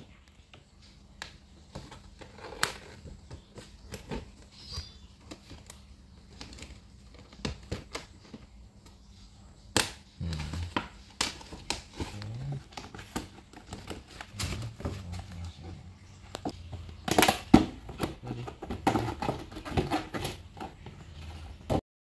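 Hard plastic panels of a folding shoe box being handled and snapped together: irregular clicks and knocks with handling rustle, busier and louder in the second half.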